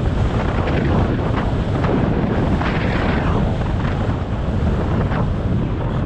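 Wind buffeting the microphone of a camera worn by a skier on the move, with skis hissing and scraping over wind-packed snow in short, repeated swishes.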